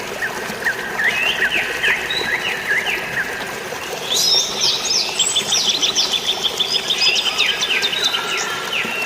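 Several birds chirping in quick runs of short repeated notes, joined about four seconds in by higher, busier chirps, over a steady hiss of rain and flowing water.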